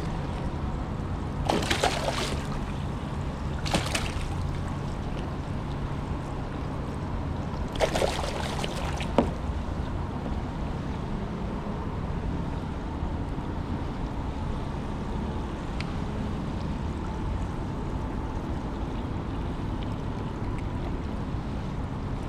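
Water splashing and sloshing against a fishing kayak. Three short splashes come within the first ten seconds, over a steady low hum.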